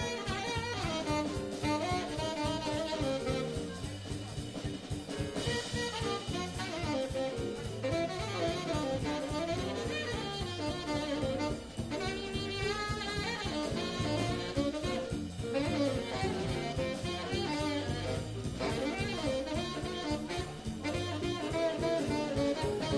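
Jazz big band playing live: saxophone and brass sections in ensemble over a drum kit and rhythm section.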